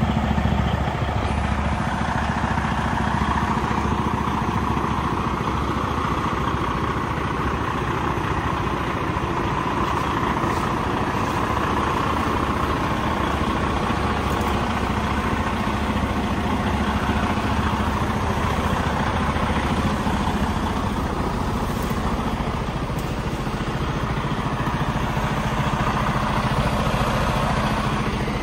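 Diesel engine of a 2016 Freightliner Cascadia truck tractor idling steadily.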